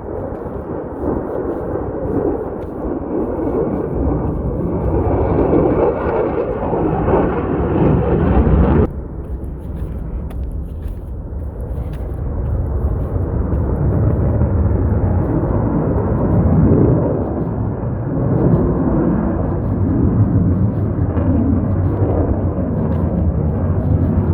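F-35 fighter jet's turbofan engine heard in flight: a loud, rough rumble. It drops off abruptly about nine seconds in, then builds back up and carries on.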